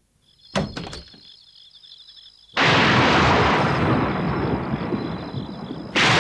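A few short clacks as wooden window shutters are pushed open, then about two and a half seconds in a loud, sustained rumble of thunder that slowly eases, with a fresh loud burst of thunder near the end.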